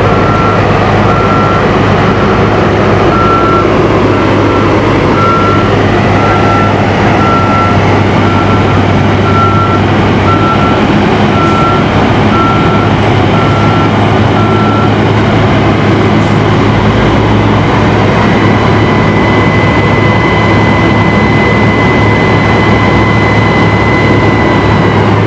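Heavy diesel dump truck and asphalt paver engines running, with the truck's reversing alarm beeping about once a second as it backs up to the paver. The beeping stops about halfway through. A steady high whine sets in a few seconds later as the dump bed tilts up to unload asphalt.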